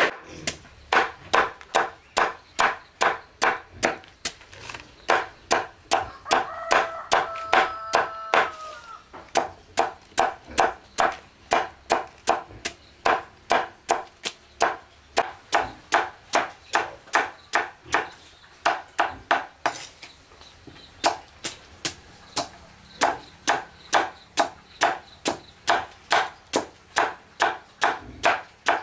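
Knife chopping vegetables on a wooden board for pig feed, sharp even strokes at about two a second without a break. A short pitched call sounds behind the chopping about seven seconds in.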